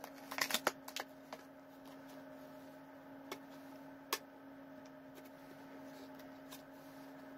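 Clear plastic packaging of a store-bought chicken wrap crackling and clicking as it is handled and opened: a quick run of crackles in the first second, then single clicks about three and four seconds in. A steady low hum runs underneath.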